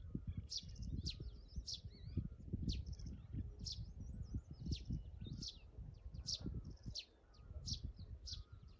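Wild birds singing in the morning: a steady series of sharp, high chirps, about one to two a second, with softer warbling calls between them. An uneven low rumble of wind on the microphone runs underneath.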